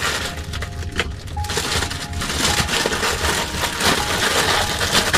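Clear plastic packaging bag crinkling and rustling in the hands as a seatbelt shoulder pad is pulled out of it, a dense run of small crackles.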